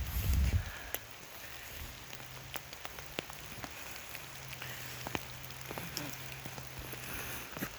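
Raindrops hitting an umbrella, many irregular sharp taps over a steady hiss of rain, with a low thump about half a second in.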